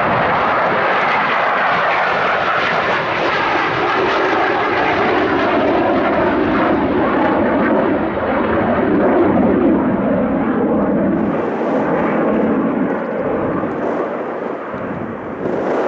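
Boeing F-15QA Eagle's twin GE F110 turbofan engines as the jet passes on a touch-and-go circuit: loud, continuous jet noise with slowly sweeping pitch bands. The high hiss thins out in the second half as the jet moves off.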